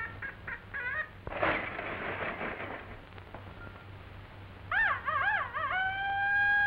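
Cartoon animal cries: short squeaky chirps, a brief raspy noise, then three quick rising-and-falling whines and one long held howl near the end.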